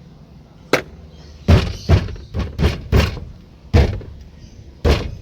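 About eight hard knocks and thuds, unevenly spaced, with a bunch of quick ones in the middle, from work on a Suzuki Carry's steering wheel and its 17 mm retaining nut.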